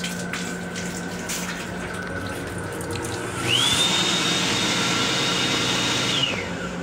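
The automatic faucet in an M7 railcar restroom runs water into the basin over a steady hum. About three and a half seconds in, a louder motor whine spins up, holds a high steady pitch, and winds down near the end as the water stops.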